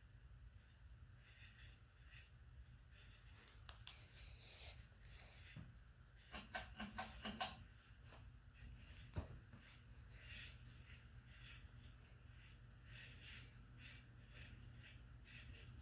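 Harbor Breeze Marco Island ceiling fan running faintly: a steady low hum with irregular scratchy ticking from its bad bearings, and a quick run of louder clicks about six and a half seconds in.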